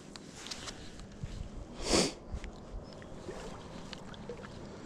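Shallow water lapping around a large muskie held at the edge of a boat ramp, with one brief splash about two seconds in, the loudest sound, as the fish moves in the water. Wind rumbles on the microphone.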